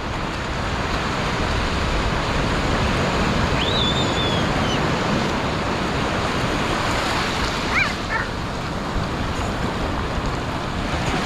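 Ocean surf washing steadily, with a couple of short high calls about four and eight seconds in.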